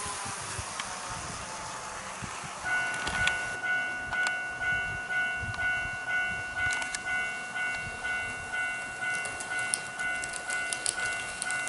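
A model railway level-crossing warning device starts sounding about three seconds in: an electronic crossing bell ringing in a steady repeated ding, about three strikes every two seconds. Sharp clicks from the model train's wheels over the rail joints and points come thicker near the end.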